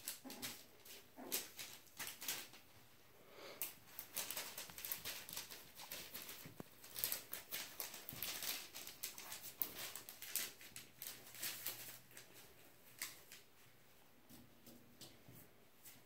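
Havanese puppies scuffling at play: many quick, light clicks and patter, busiest in the middle, with a few faint low puppy grunts near the start and end.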